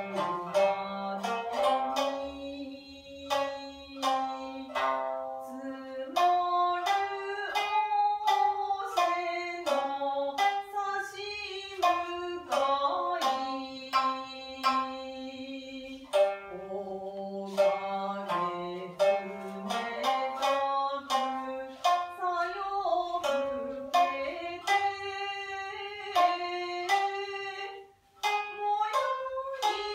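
Shamisen plucked in sharp, ringing notes, accompanying a voice singing long held notes that bend in pitch, in Japanese traditional style; there is a brief break near the end.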